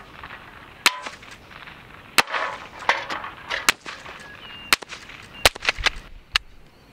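A string of sharp shots from a Rossi Model 62 .22 rimfire pump-action rifle: about eight cracks, mostly less than a second apart.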